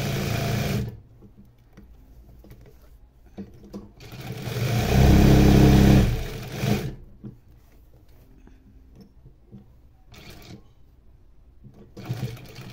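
Industrial sewing machine driven by a servo motor set to about 2,000 stitches per minute, stitching in bursts: it runs briefly and stops, then speeds up to a fast, loud run of about two and a half seconds in the middle, stops again, gives a short burst, and starts up once more near the end.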